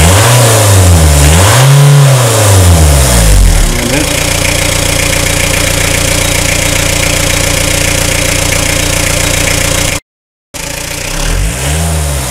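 Renault Kangoo's swapped-in 1.9 D diesel engine revved twice in quick succession, then settling to a steady idle. Near the end, after the sound cuts out for half a second, it is revved again. The engine sound is clean, with nothing wrong to be heard.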